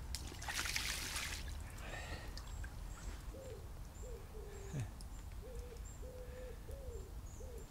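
A short rustling noise near the start, then from about three seconds in a run of short, low hooting calls, each under half a second, repeated a little more than once a second.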